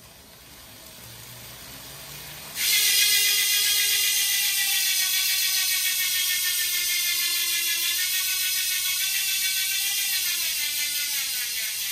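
DT Swiss star ratchet freehub with a 54-tooth ratchet, in a road bike's rear wheel. For about two and a half seconds the cranks are turned by hand with a quiet, rising whir. Then the wheel coasts and the freehub gives a crazy loud, fast buzz whose pitch falls slowly as the wheel slows.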